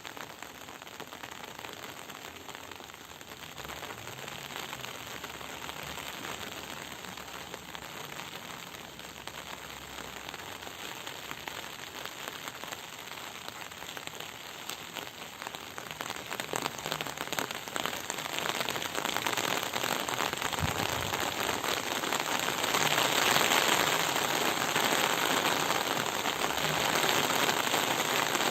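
Rain falling: a steady hiss made of many small drop impacts, growing heavier and louder past the halfway point.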